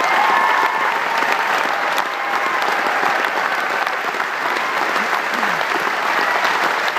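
A large theatre audience, together with the cast on stage, applauding: dense, steady clapping, with a few cheering voices in the first second.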